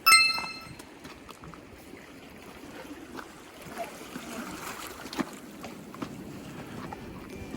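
A bright ringing chime with several tones sounds right at the start and fades within about a second. Then comes steady faint water-and-wind ambience at the sea's edge, with scattered small clicks and taps.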